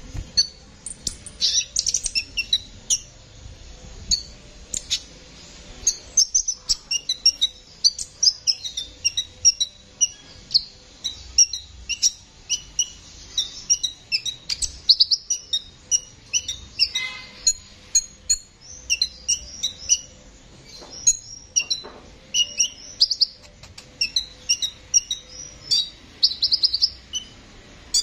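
Male sunbird singing a fast, high-pitched run of short chirps and quick trills, with a couple of brief pauses.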